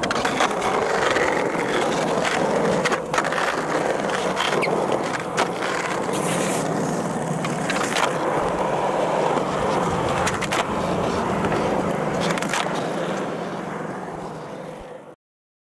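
Skateboard wheels rolling on a hard paved track, broken by about five sharp clacks of the board being popped and landed in shove-it tries. The sound cuts off suddenly near the end.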